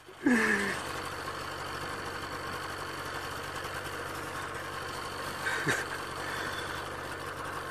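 An engine idling steadily. A brief falling vocal sound comes just after the start, and a single sharp knock about six seconds in.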